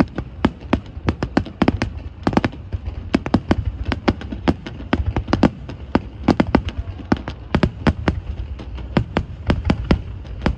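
Fireworks going off in a rapid, irregular string of sharp bangs, several a second, over a low rumble.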